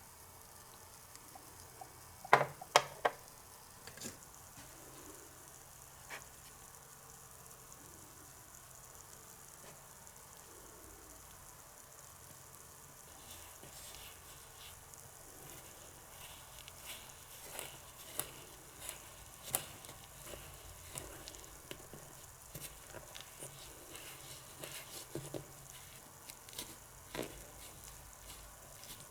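Faint frying sizzle in a miniature toy kitchen, with small utensil clicks: three sharp clicks a couple of seconds in, then a denser run of small crackling ticks through the second half.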